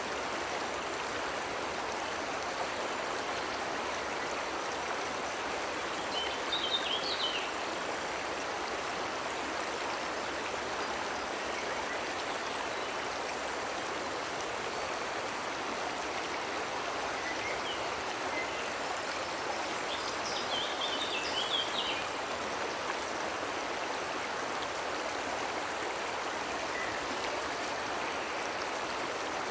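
Cascading water rushing steadily, with a bird chirping briefly twice, a few seconds in and again about two-thirds of the way through.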